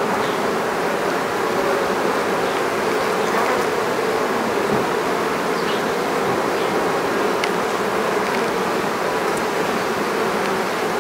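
Honeybees crowding an open brood comb close to the microphone, humming steadily. The colony is queenright: its marked queen is on this frame and laying.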